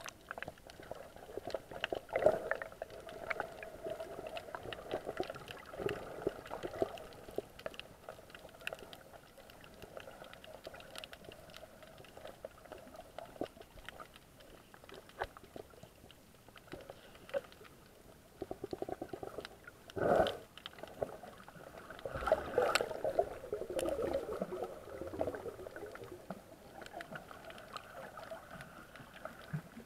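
Muffled underwater sound heard through a camera's waterproof housing: water moving against the housing with faint crackling. Short louder swishes come about twenty seconds in and again around twenty-three seconds in.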